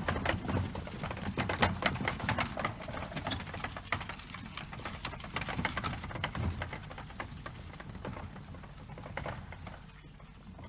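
Horse hooves clip-clopping and cart wheels rattling and rumbling as a horse-drawn cart passes and moves away, fading steadily.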